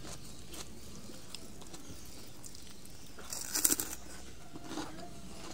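A person eating: quiet chewing, with a short burst of crisp crunching about three and a half seconds in.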